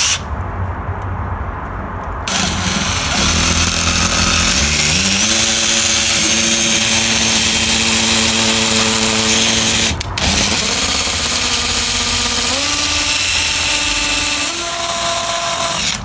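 Makita cordless hammer drill in hammer mode boring through brick mortar with a masonry bit. It starts softly, then from about two seconds in runs hard with its motor whine climbing in pitch, stops briefly about ten seconds in, and runs again, slowing and speeding up.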